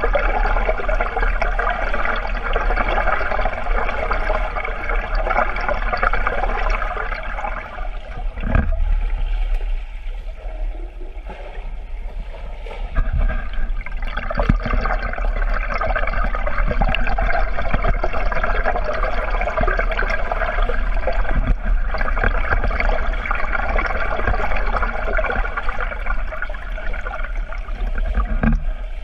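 Water rushing and gurgling, heard from underwater in a swimming pool as a swimmer moves through it. A steady churning noise dips for a few seconds about a third of the way through, then builds again.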